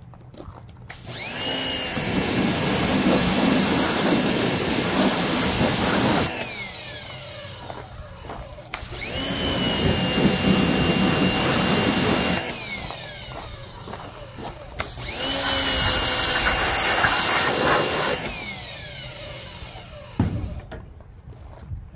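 Pressure washer spraying in three bursts of a few seconds each, its high whine rising as each burst starts and falling away as it stops, over the hiss of the water spray.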